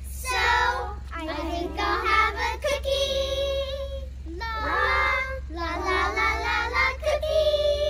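A group of young girls singing a song together, in short phrases with held notes and brief breaks between them.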